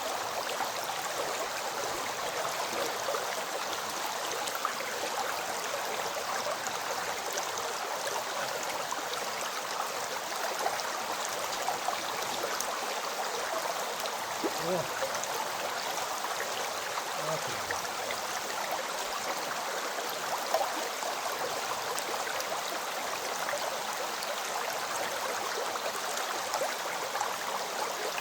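Shallow river or stream flowing steadily, a continuous rushing and babbling of water with small splashes and gurgles.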